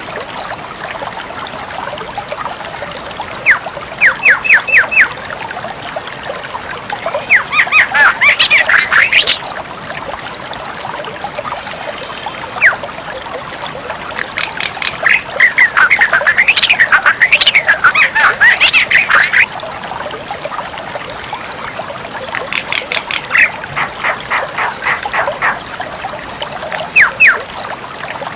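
Javan myna singing in bouts of loud, rapid, harsh repeated notes and chatter, each bout lasting one to four seconds, with short pauses between, over a steady background hiss.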